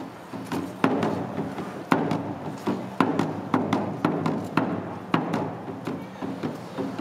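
Awa Odori festival dance music: drum and hand-gong strikes in a steady, driving beat, about two a second with stronger accents about once a second, over a low pitched accompaniment.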